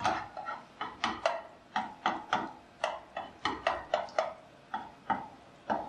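Hot oil popping and crackling in a frying pan as an egg-battered bread slice fries, in irregular sharp pops a few times a second that thin out near the end.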